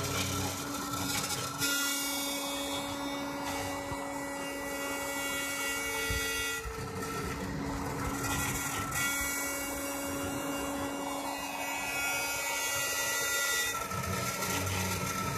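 Homemade CNC engraver running an engraving job: a steady rotary-tool hum under the whine of stepper motors salvaged from a laser printer. Their tones change pitch and start and stop every few seconds as the axes move from one move to the next.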